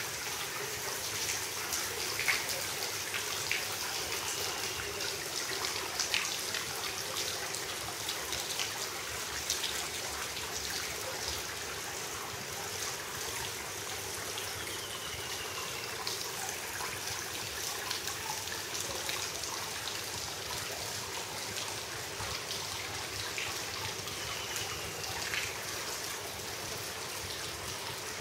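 Steady trickling and splashing of running water from the pool's water wall and infinity-edge overflow, with a few sharper drips. A few faint short descending whistles sound above it.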